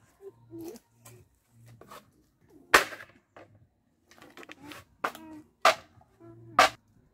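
A machete chopping into a green bamboo pole: a run of sharp cracking strokes with fainter knocks between, the loudest about three seconds in.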